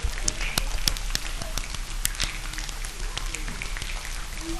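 Irregular pattering with sharp crackling clicks, like rain falling on a surface: a rain sound effect.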